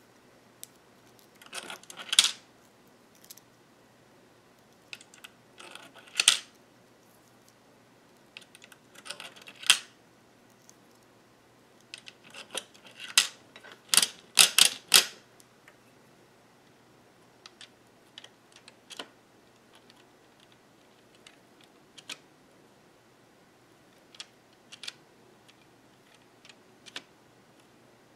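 Hand-cranked 3D-printed circular sock knitting machine turning in short spurts, its plastic latch needles and gears clattering in bursts of rapid clicks, the loudest about 13 to 15 seconds in. After that only scattered single ticks are heard.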